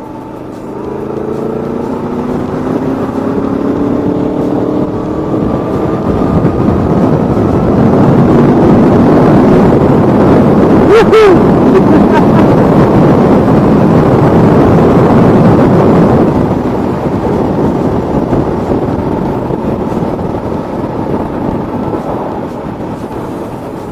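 Aprilia Tuono V4 motorcycle's V4 engine accelerating, its pitch rising over the first few seconds, then heavy wind rush at speed that peaks around the middle and slowly eases off.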